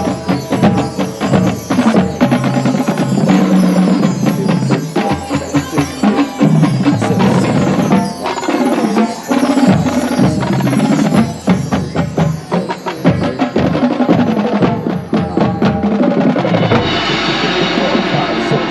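High school marching band playing, with the drumline's drums and percussion prominent over the band. Near the end the low drum strokes drop away and a brighter, steadier sound takes over.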